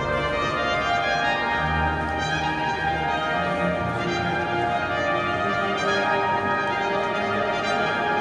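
An instrumental ensemble with prominent brass plays slow, sustained chords over a low bass line, the notes blurred by the long echo of a cathedral.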